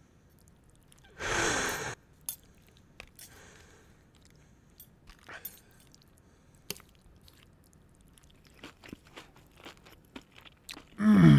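Knife and fork cutting through a piece of cooked meat on a plate: scattered clicks and scrapes of the cutlery, with a longer, louder scrape about a second in. Near the end comes the loudest sound, a short vocal sound that drops in pitch.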